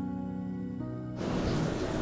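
Soft background music with long held tones, cut off a little over a second in by a loud steady rush of water pouring down the drain, which has just been cleared of its grease clog.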